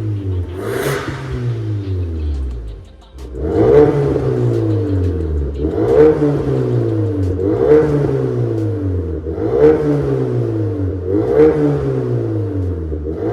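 Ford Kuga EcoBoost 250 ST-Line engine through an MS-R valved catback exhaust with a straight-through downpipe, revved repeatedly: each rev climbs quickly and then drops off slowly, about one every two seconds, after the revs fall away and briefly dip a few seconds in.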